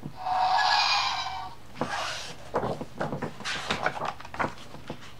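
A button on a Play-A-Sound book clicks and the book's small speaker plays a short electronic sound effect lasting about a second and a half. Then a page is turned, with a run of irregular paper rustles and crinkles.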